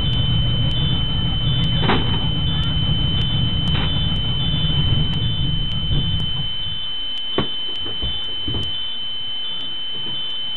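Inside an overturned school bus: a low engine rumble that cuts off about six and a half seconds in, under a steady high electronic tone. A few sharp knocks come from people climbing over the seats.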